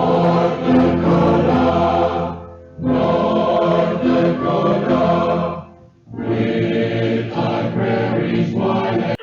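Choral music: a choir singing sustained chords in three phrases, each a couple of seconds long, with short breaks between them.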